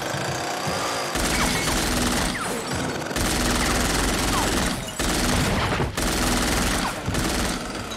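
Rapid gunfire in repeated bursts of a second or two each, with short breaks between them, over film-score music.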